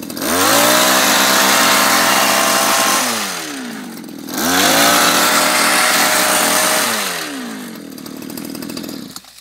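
Small petrol engine of a handheld tea harvesting machine, revved up twice as the blade shears across the tea bushes. Each time it holds at high speed for about two and a half seconds, then its pitch falls back to idle, where it runs near the end.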